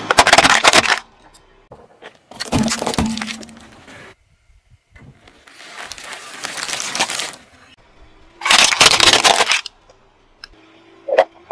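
Car tyre crushing a plastic toy pickup truck, which cracks and breaks, followed by three more separate bursts of crunching and cracking, each one to two seconds long, as the tyre flattens other objects, the last a plastic crocodile toy.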